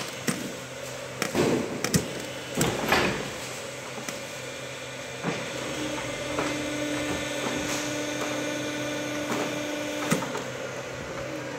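Factory machinery running with a steady hum and scattered metal clanks and knocks, several in the first three seconds. A higher steady tone comes in about six seconds in and stops with a clank about four seconds later.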